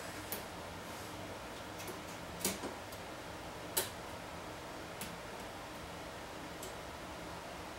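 A handful of light, sharp clicks and taps from a hand tool and small parts being handled at a 3D printer's metal frame, the loudest nearly 4 seconds in and two close together a little before it, over a steady low hiss.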